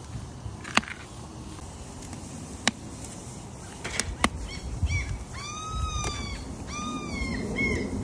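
Metal grill tongs clicking sharply four times while chicken wings are picked up and laid on the grate. In the second half a bird calls repeatedly, each call rising and then falling in pitch.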